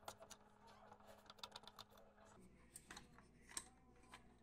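Faint, quick, irregular light clicks and taps of small hard objects being handled, a few louder than the rest.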